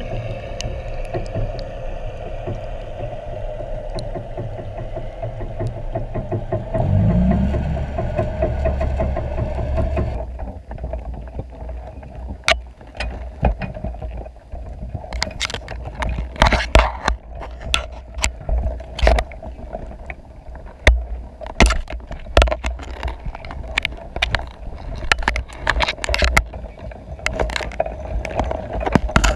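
Muffled underwater sound from a camera sealed in a waterproof housing inside a submerged crab pot: a steady hum throughout, with a low rumble swelling about seven seconds in. From about ten seconds on there is a run of sharp knocks and scrapes against the housing and pot.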